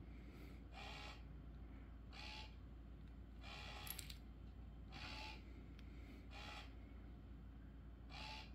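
Automatic laser cat toy's small motor whirring briefly about six times, each a short, identical whir every second or so as it swings the laser dot to a new spot.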